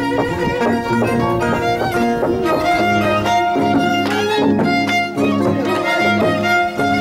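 Music led by a violin playing a wavering, sliding melody over held low notes.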